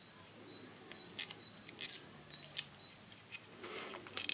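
Thin plastic protective film crackling as it is peeled off a glossy black phone charger: a string of sharp crinkles and snaps that grows denser near the end.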